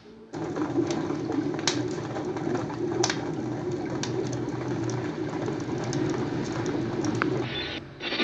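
Cartoon sound effect of a crackling fire: a steady low rumble with scattered sharp crackles, starting suddenly and cutting off near the end.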